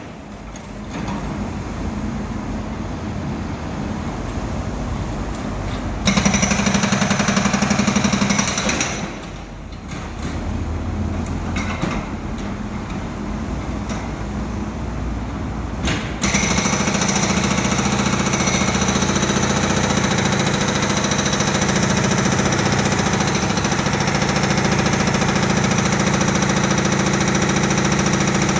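Powered breaker hammering rapidly into concrete or rock, a fast continuous pounding over a steady machine hum. The sound changes abruptly a few times, as if separate shots are cut together.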